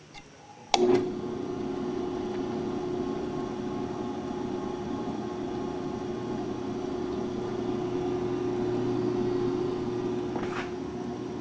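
Hobart A200 20-quart commercial mixer switched on with a click under a second in, then its motor and gear drive running with a steady hum.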